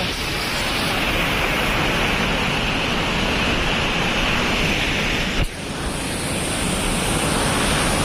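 Steady rushing roar of a waterfall and river, with a brief dip about five and a half seconds in.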